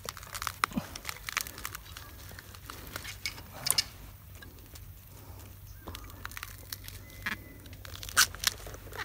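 Dry bamboo leaves and twigs rustling and crackling as they are disturbed among thorny bamboo stems, in irregular scattered snaps, with a few sharper ones about four seconds in and near the end.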